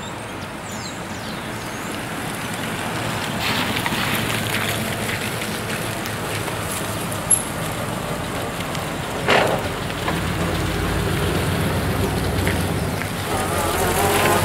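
Vintage Ford cars and a Ford truck driving past one after another on a wet road, tyres hissing on the wet surface under the engines. There is a short swish about nine seconds in. Engine noise grows louder near the end as the truck comes by.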